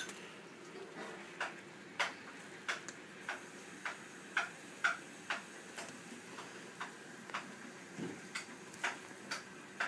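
A series of short, sharp ticks at an uneven pace, roughly one or two a second.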